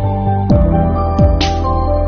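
Background music with a kick-drum beat under held chords.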